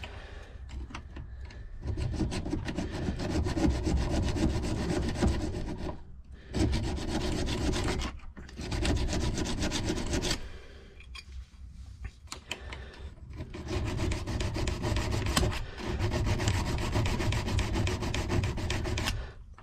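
Hand file rasping back and forth on a welded bullet warded key held in a vise, in about four runs of quick strokes with short pauses between them. The file is taking down the weld so that it won't stop the key going in and out of the lock.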